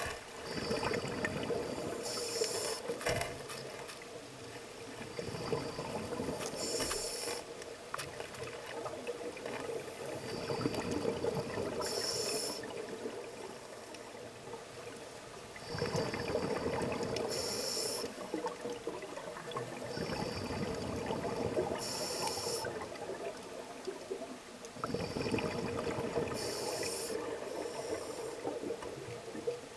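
Scuba diver breathing underwater through a demand regulator: a sharp hiss of air and the bubbling rush of exhaled air, repeating in a slow cycle of about six breaths, roughly one every five seconds.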